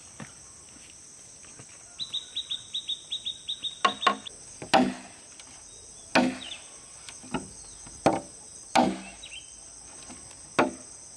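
Tool blows on wood, about eight knocks at irregular intervals, each with a brief ringing tone, after a quick run of light taps about two seconds in. Crickets chirr steadily behind.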